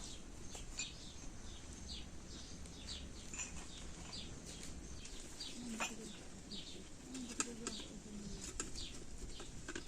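Small songbird chirping over and over, short falling chirps about two a second, with a few short low sounds in the second half.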